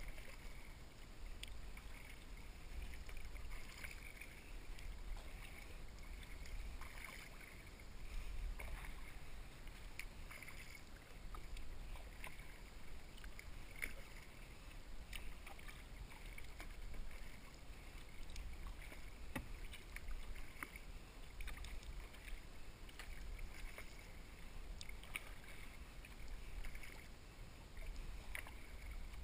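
Kayak paddling on calm water: the paddle blades dip and pull through the water again and again, with small splashes and drips falling from the blades, over a steady low rumble.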